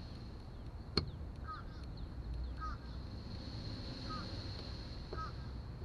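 Outdoor ambience: a bird chirps four times at roughly one-second spacing over a steady high insect buzz and low rumble. About a second in there is a single sharp click from the plastic trim tool prying at the car's door panel.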